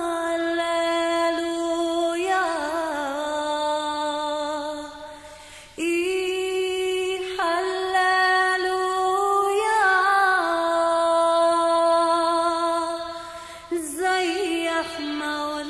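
A woman singing a slow hymn with long held notes and ornamented, wavering turns. The phrases break briefly about six seconds in and again near the end.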